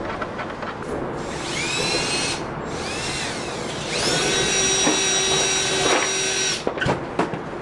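Electric drill revved in two short bursts, its whine rising each time, then run steadily for about two and a half seconds before stopping. A couple of knocks follow.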